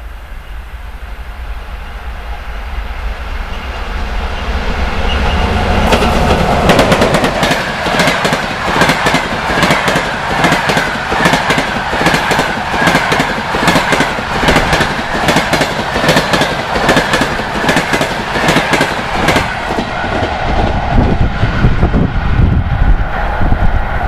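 An EP1M electric locomotive hauling a passenger train passes at speed. It grows louder as it approaches and is loudest about six seconds in as the locomotive goes by. Then comes the steady rhythmic clickety-clack of the coaches' wheels over the rail joints, with wind on the microphone at first.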